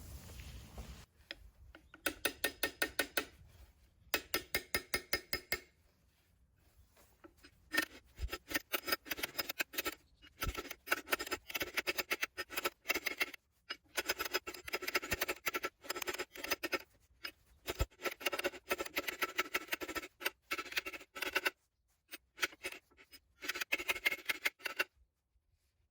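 Ratchet wrench clicking in stop-start bursts, about nine sharp clicks a second, with pauses between strokes.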